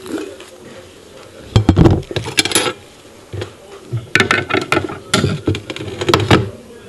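Cutlery clinking and scraping against a plate in two quick clusters of sharp clicks: one about a second and a half in, and a longer one from about four seconds to six and a half.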